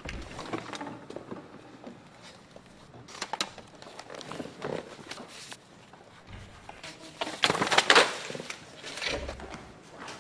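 Paper rustling and crinkling as manila papers are handled, in irregular short bursts, with a louder stretch about eight seconds in.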